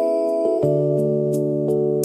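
Slow ambient keyboard music: sustained electric-piano-like chords that change about half a second in, with a few faint sharp crackles of a fire over them.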